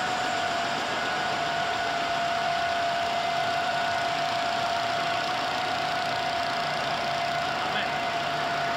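GIDUE MASTER Combat flexographic label press running: a steady machine hum and hiss with one constant high whine throughout.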